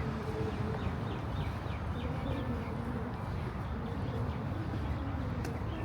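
A small bird calling in a quick run of short, falling chirps over the first two or three seconds, over a steady low background rumble.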